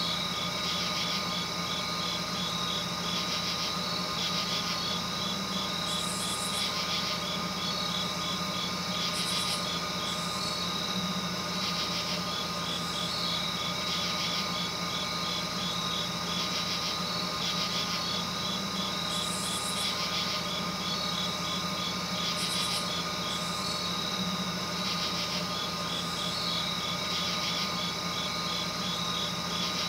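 Steady hum with several constant tones, overlaid by rapid high-pitched chirping in trains that come and go every few seconds.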